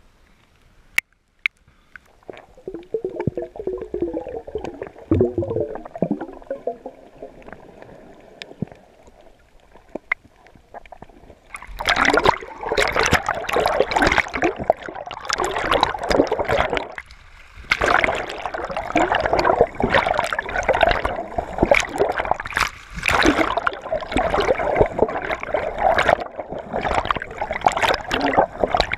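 Water sloshing and gurgling over a camera held at the surface while snorkelling. About twelve seconds in it turns suddenly louder into a dense, crackling rush of splashes and bubbles as the camera dips under and a swimming hand churns the water.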